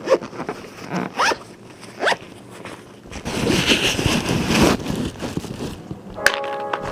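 Two quick rising zipping sounds about a second apart, followed by a few seconds of rustling, scraping noise.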